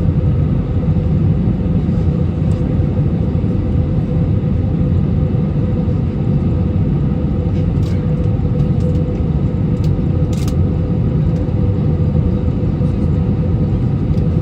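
Steady engine and airflow rumble inside a passenger airliner's cabin, with a constant hum over it and a few faint clicks.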